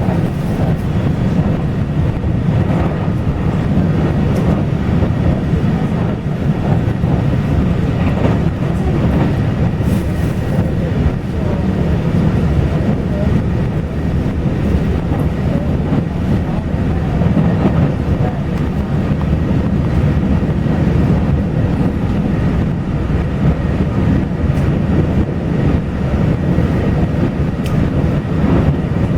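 Taiwan Railway local express train running, a steady rolling rumble of wheels on rail.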